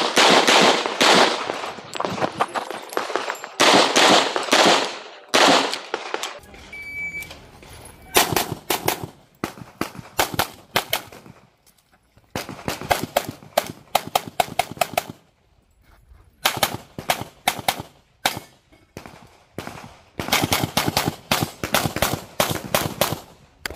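A handgun fired in fast strings of shots on an IPSC stage, the strings broken by short pauses. A short electronic beep, the shot timer's start signal, sounds about seven seconds in before the shooting picks up again.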